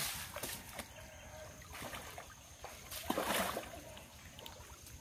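Faint sloshing and splashing of shallow muddy water stirred by wading legs and hands groping in it, with a brief louder splash about three seconds in.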